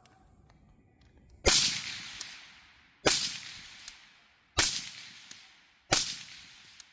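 Four gunshots, about a second and a half apart, each followed by a long fading echo.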